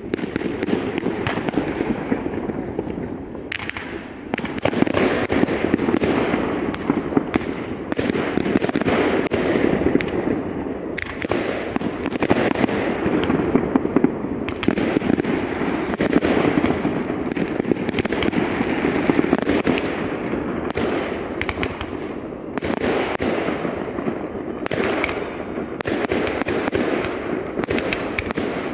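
New Year's fireworks going off in a dense, continuous barrage of bangs and crackles, easing briefly about three seconds in.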